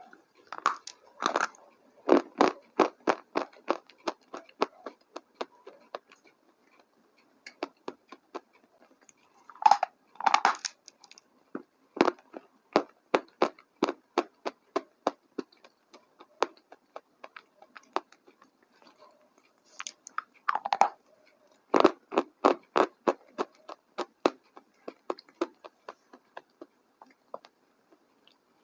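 Close-up chewing of crunchy food: long runs of regular crunches, about three to four a second, with a few louder bites along the way.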